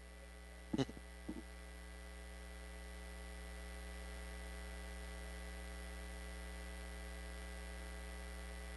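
Steady electrical mains hum from a microphone and sound-system chain, growing slightly louder over the first few seconds. It carries a faint high whine. A couple of brief faint sounds come about a second in.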